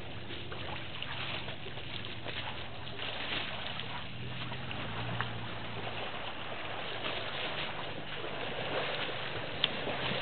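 African elephants wading and drinking at the edge of a waterhole: water sloshing and splashing around their feet and trunks. A single sharp click near the end.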